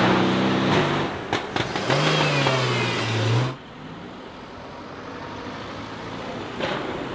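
Mercedes-AMG GLC63S twin-turbo V8 running hard at high revs, with a few sharp exhaust crackles about a second in. A lower engine note follows, then about halfway through the sound drops suddenly to a much quieter steady rush.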